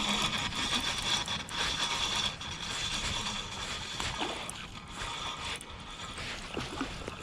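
A fishing reel's mechanism whirring and clicking while a hooked fish is played in. It is steadiest for the first five seconds or so, then becomes more broken.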